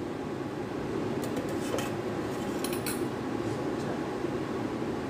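Steel spoons clinking lightly against steel pans and bowls, a few short clinks in the middle, over a steady background noise.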